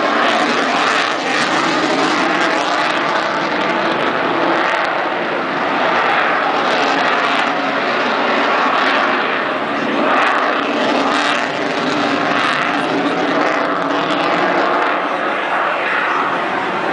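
An F-22 Raptor's twin Pratt & Whitney F119 afterburning turbofans make loud, steady jet noise as the fighter manoeuvres overhead. The noise swells and eases slowly.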